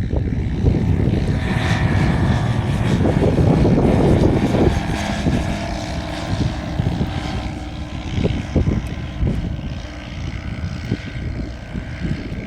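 Single-engine light propeller aircraft running, growing louder to its loudest about four seconds in and then fading away.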